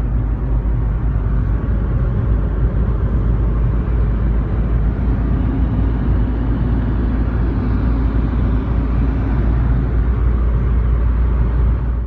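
Car on the move: a steady, loud, low engine and road rumble.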